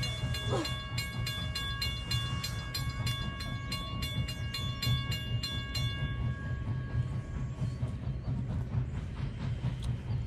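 Railroad grade-crossing bell ringing in rapid, evenly spaced strokes, about three a second, over a low steady rumble. The bell stops about six seconds in as the steam train approaches.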